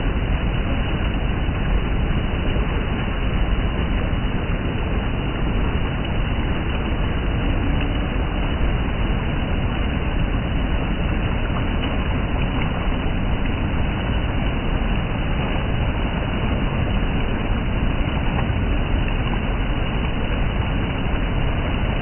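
Water rushing and splashing down over sloping rock slabs in a shallow cascade, a loud, steady rush.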